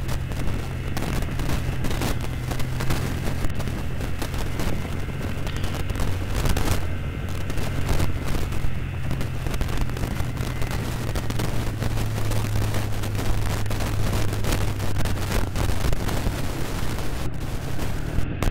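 Yamaha Vixion's single-cylinder four-stroke engine running under way, its note shifting about two-thirds of the way through, with heavy wind buffeting the microphone in loud gusty thumps.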